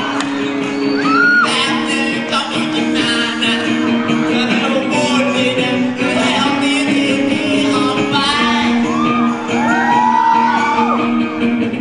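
Live band music in a large hall, with held chords and a crowd shouting and whooping over it.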